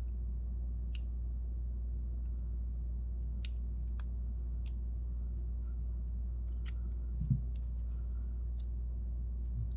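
Scattered faint, sharp metal clicks and ticks, a few seconds apart, from lock picks working the 4-pin tumbler of a keyed trigger-guard lock. There is one soft low knock about seven seconds in, over a steady low hum.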